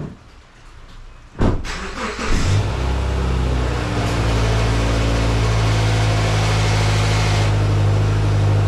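2010 Subaru Forester's flat-four engine cranked and started about a second and a half in, catching within a second, then idling steadily.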